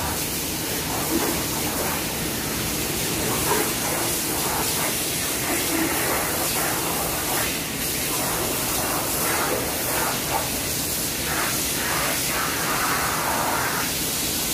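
Water jetting from a hose onto a wet concrete stall floor, a steady hiss and splash.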